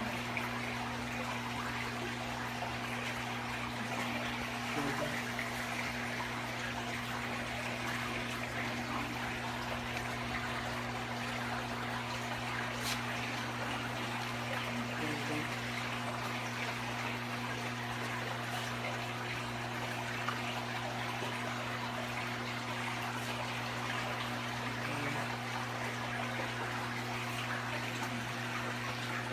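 Aquarium filter water trickling and splashing steadily into the tank, over a steady low hum from the pump.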